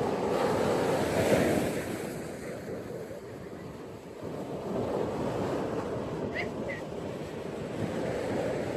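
Ocean surf washing onto a beach: a wave breaks and hisses up the shore in the first two seconds, ebbs away, then the next wash swells in about five seconds in. Two short high chirps sound just after six seconds in.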